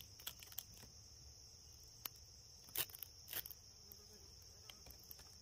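Faint, steady high-pitched insect chorus, with a few soft clicks scattered through it.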